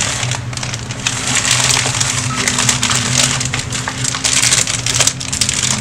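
Plastic bag crinkling and rustling as seasoning packets inside are rummaged through and one is pulled out, over a steady low hum.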